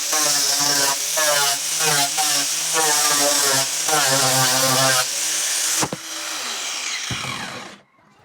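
Electric power sander running on wooden tabletop plank edges, its motor pitch dipping and recovering over and over as it is pressed into the wood. About six seconds in it is switched off, winding down in pitch and stopping just before the end.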